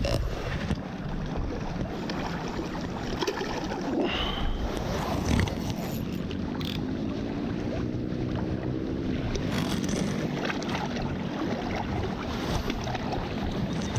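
Small lake waves lapping and sloshing against a camera held at the water's surface, with wind on the microphone. Over the second half a faint hum slowly bends up and down in pitch.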